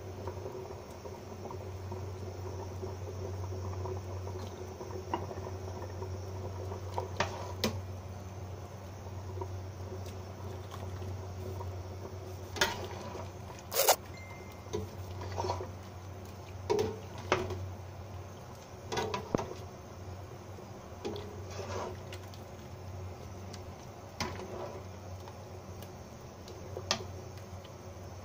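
A metal ladle stirring and scooping soup in a stainless steel pot, giving scattered clinks and knocks against the pot, loudest about halfway through. The soup simmers under a low steady hum.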